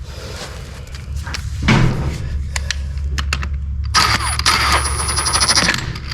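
A thud and a few sharp metallic clicks, then a power wrench runs in one dense, buzzing burst of about two seconds starting some four seconds in, undoing bolts to take the head off a diesel engine.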